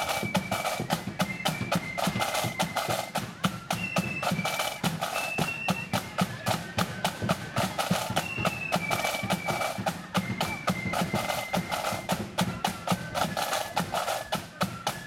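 Marching flute band playing a march: a high flute melody over rapid snare drumming and a steady bass drum beat.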